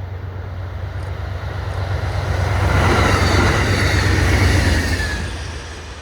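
Train passing at speed: a low hum and wheel-on-rail rumble that swell to a peak and fade, with a high whine that drops in pitch as it goes by.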